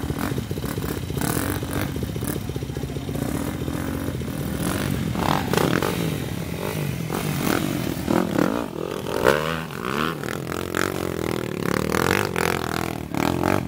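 Dirt bike engines running, one revving up and down, its pitch rising and falling repeatedly in the second half.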